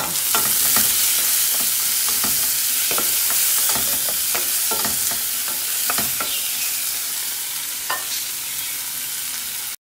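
Chopped onion, tomato and green pepper sizzling in hot oil in a stainless steel frying pan: a steady frying hiss with irregular clicks and scrapes of a utensil stirring against the pan. The sound cuts off abruptly just before the end.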